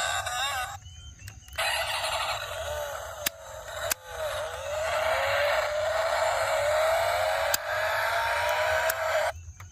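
A vehicle motor running with a noisy whir that rises in pitch several times, like a car accelerating, with a few sharp clicks; it starts about a second and a half in and cuts off shortly before the end.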